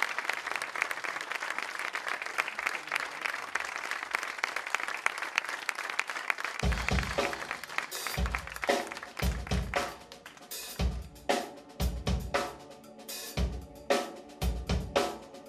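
Audience applause, then about six and a half seconds in a live band starts a song: a drum kit leads with regular kick-drum beats, snare and cymbals, with pitched instruments playing along.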